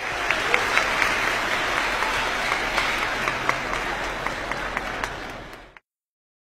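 Congregation applauding, a dense mass of clapping that cuts off abruptly shortly before the end.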